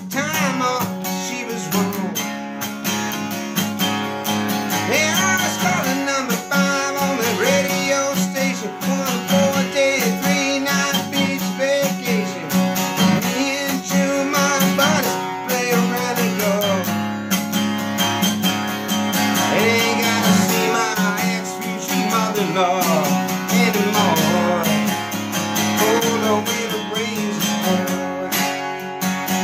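Acoustic guitar strummed steadily, playing a country song.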